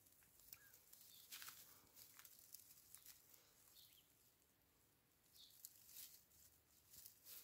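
Faint, scattered rustling and crackling of dry straw as young kittens crawl about in their straw nest, with a few brief, faint high squeaks.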